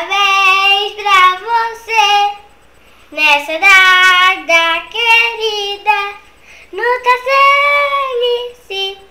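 A young girl singing unaccompanied, in three phrases of held, sliding notes with short breaks between them.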